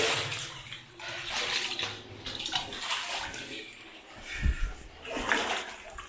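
Water splashing and sloshing in uneven bursts as someone wades through a shallow cave stream, with one low thump about two-thirds of the way through.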